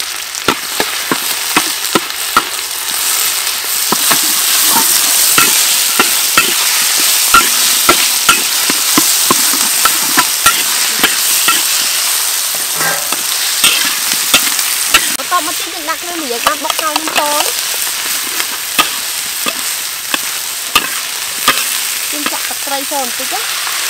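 Food sizzling in hot oil in a large wok while a metal spatula stir-fries it, scraping and clinking against the pan in many quick irregular strokes.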